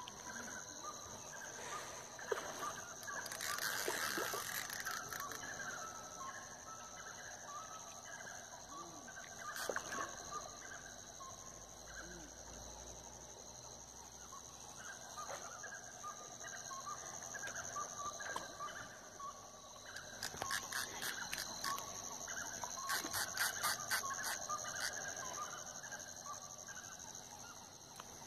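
Night ambience by a pond: a steady high-pitched insect drone with scattered short animal calls. Two bursts of rapid clicking come about twenty seconds in and again a few seconds later.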